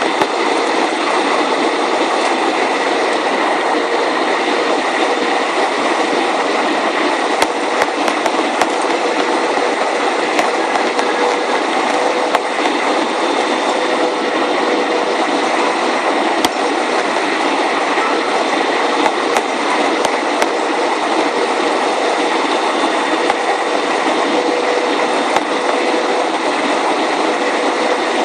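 Steady cabin noise of a jet airliner on approach with its flaps extended: engine and airflow rushing, with a steady droning tone underneath and a few faint clicks.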